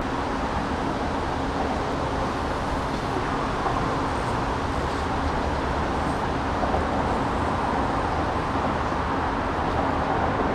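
Steady drone of road traffic with a faint low hum running through it.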